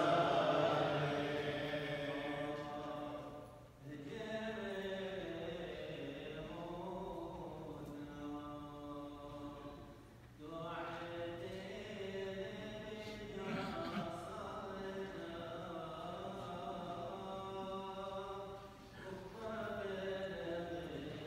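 Chaldean clergy chanting funeral prayers in long sung phrases, with brief breaks between phrases about 4, 10 and 19 seconds in.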